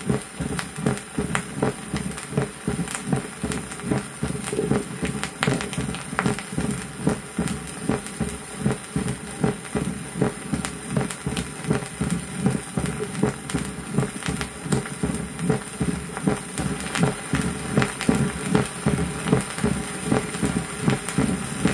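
Recorded heartbeat of mitral stenosis (narrowing of the left atrioventricular valve), through a stethoscope-type pickup: a short, rising presystolic murmur ending in a loud, snapping first heart sound, repeating evenly with every beat. It plays over the hiss and crackle of a shellac 78 rpm record.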